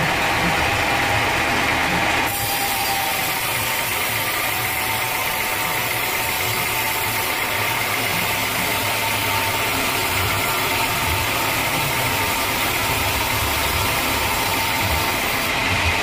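Band sawmill running, its blade cutting lengthwise through a teak log with a steady mechanical noise. The sound shifts abruptly about two seconds in.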